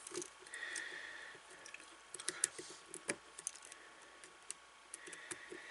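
Scattered light clicks and taps of handling small parts and tools, the sharpest about three seconds in.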